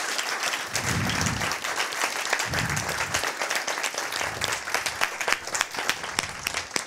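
Audience applauding: many hands clapping together in a dense, steady patter that thins a little toward the end.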